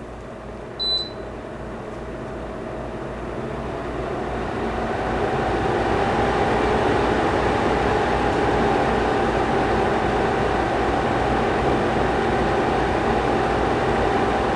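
Tosot Tranquility window air conditioner in fan-only mode, with a short beep about a second in, then the fan's rushing noise growing louder over about five seconds as it speeds up from low to medium, and then holding steady. A faint hum under the noise rises slightly in pitch as the fan speeds up.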